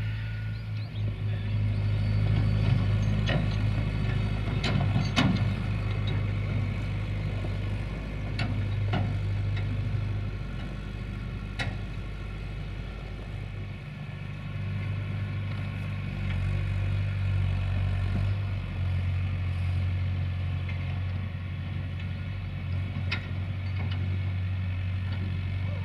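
Tractor engine running steadily at a constant speed, with a few sharp metallic knocks and clanks scattered through.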